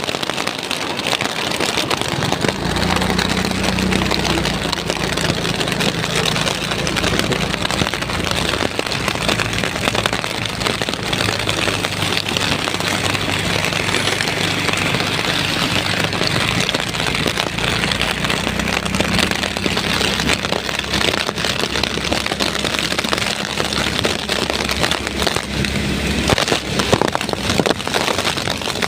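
Heavy rain pouring down steadily in a rainstorm. A low, steady engine hum runs under it through most of the stretch.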